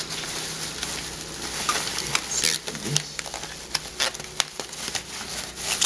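Newspaper packing and plastic bags rustling and crinkling as they are handled, with irregular sharp crackles.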